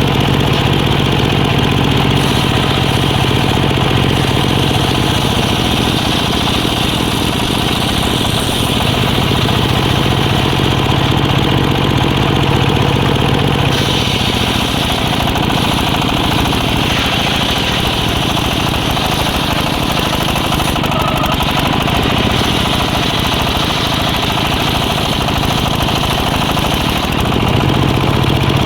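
Engine-driven circular saw running steadily while cutting teak wood. About halfway through, the engine note drops lower and a hissing cutting sound grows, as the blade takes load. Near the end the engine note rises again.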